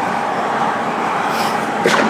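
Tuned Nissan Skyline R34 GT-R's twin-turbo straight-six running on the road under steady road and wind noise, with a sharp crack just before the end.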